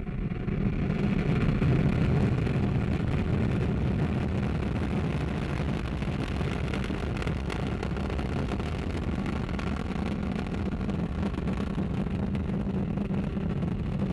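Ariane 5 rocket's Vulcain main engine and two solid rocket boosters at liftoff and climb-out: a steady, deep rumbling roar that swells about a second in and then holds.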